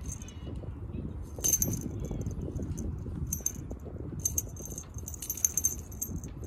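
Cat wand toy with feathers jingling in short metallic bursts as it is shaken over the cats.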